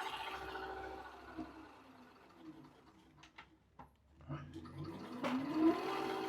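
Electric scooter hub motor whining as the freshly repaired wheel spins down and fades, a few light clicks, then the motor spins back up with a rising whine and settles at a steady speed near the end: a test run after repair.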